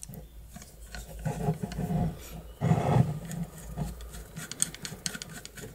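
A screwdriver driving a short screw into a steel garage lock case, with two spells of creaking, scraping metal and then a few light metallic clicks near the end.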